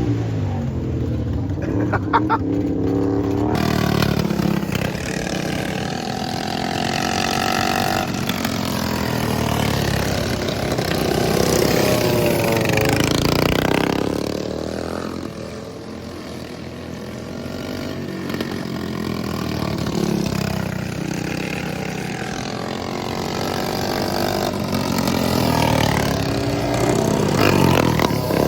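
Small engines of racing lawnmowers running hard, several overlapping, their pitch rising and falling as they rev and pass. The sound dips briefly about halfway through, then builds again.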